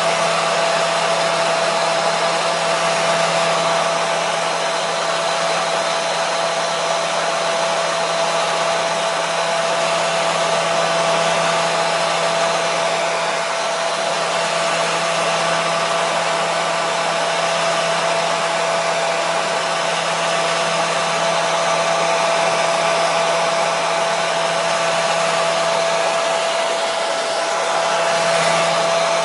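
Hair dryer running steadily: a continuous rush of air with a steady motor whine and hum.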